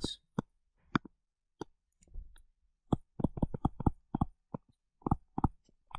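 Stylus tip tapping on a tablet screen while handwriting: sharp clicks, a few spaced apart at first, then a quick run of them from about three seconds in.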